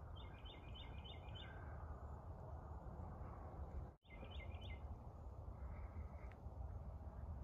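A songbird singing a quick run of about five repeated two-part notes, then after a brief break, three more about four seconds in, over a steady low rumble of background noise.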